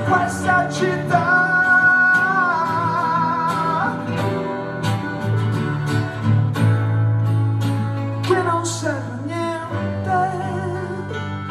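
Live acoustic pop song: a male singer's long held notes with vibrato, sliding between pitches, over an acoustic guitar accompaniment.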